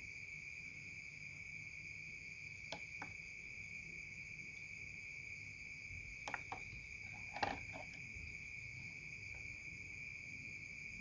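Steady high chirring of crickets in the background, with a few light clicks and taps from hands handling wires and parts on a breadboard.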